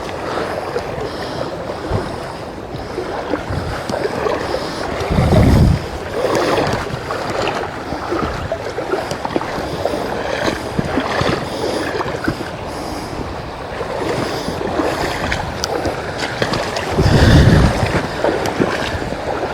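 Small creek's water rushing steadily, with two heavier low rumbles of wind buffeting the microphone about five seconds in and again near the end.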